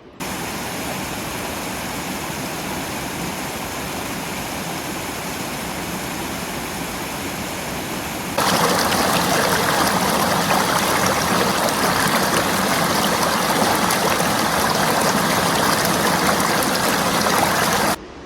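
Rushing water, a steady even rush that jumps suddenly louder about eight seconds in.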